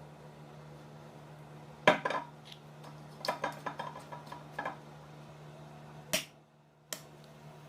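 Kitchen crockery handled: a sharp knock of a dish being set down, a run of small clinks and taps, then two single clicks. A steady low hum runs underneath.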